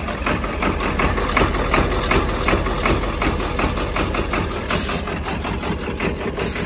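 Turbocharged engine of a custom hot-rod Ford tractor idling, with a steady, even pulse.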